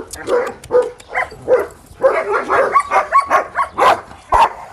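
Dogs barking and whining in short repeated calls, with a couple of sharp clicks near the end.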